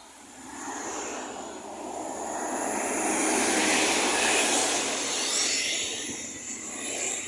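A road vehicle passing by: engine and tyre noise swelling to a peak about three to four seconds in, then fading away.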